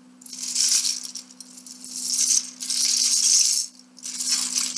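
Loose plastic Lego bricks clattering and rattling as hands rummage through a pile, in four spells of about a second each with short pauses between.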